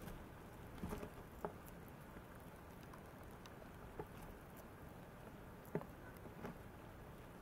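Faint scratching and scattered sharp clicks on cardboard egg crate as a bearded dragon feeds on dubia roaches among the cardboard cups. There are about six clicks, the sharpest about a second and a half in and near the end.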